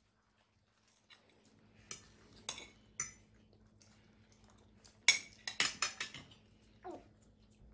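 Forks and spoons clinking and scraping against plates and a metal rice pot while people eat: a few single clinks, then a quick run of them about five seconds in.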